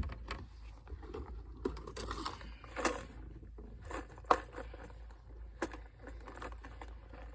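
A crankbait lure and a plastic tackle box being handled: scattered light clicks and rustling, with a couple of sharper clicks about four and five and a half seconds in.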